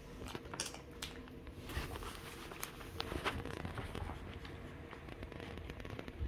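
Two-week-old puppies suckling at their mother's teats: irregular soft sucking and smacking clicks with rustling fur.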